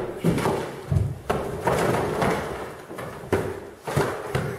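Irregular heavy thuds of a boot and hands striking a plastered brick stove wall, with plaster and brick cracking and breaking away between blows.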